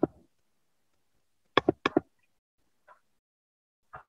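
A few short knocks or taps: one at the start, a quick run of three about a second and a half in, then a faint one or two near the end.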